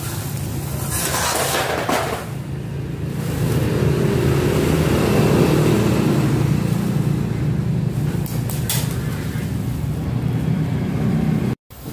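A steady low rumble that grows louder toward the middle and cuts off abruptly just before the end, with a brief rustling noise about a second in.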